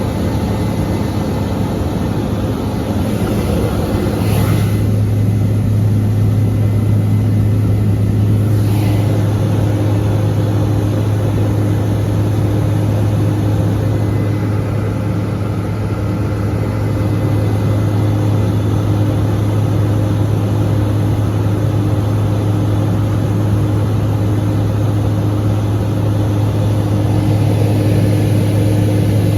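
Case IH 8120 combine's diesel engine running steadily, heard from inside the cab as a constant low hum that grows stronger about four seconds in.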